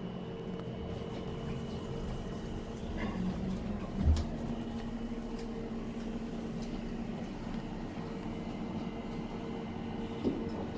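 Cruise ship passenger elevator cab running between decks, a steady hum with a single thump about four seconds in.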